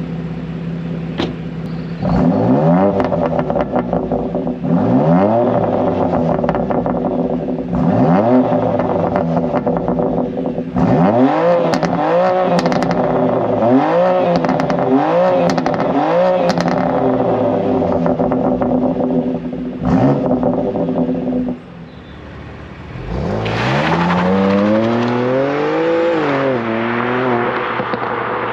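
BMW M2 Competition's twin-turbo straight-six idling through its exhaust while being blipped, a run of about ten short sharp revs that rise and drop back to idle. Near the end comes one longer rev that climbs higher and falls away.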